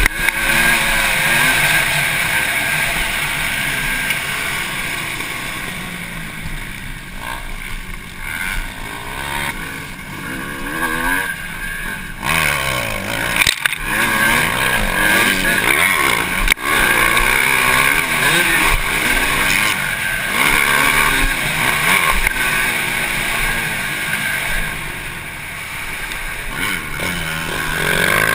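Motocross dirt bike engine revving up and down as it is ridden hard around the track, heard close up from a camera mounted on the bike. The sound cuts out for an instant twice around the middle.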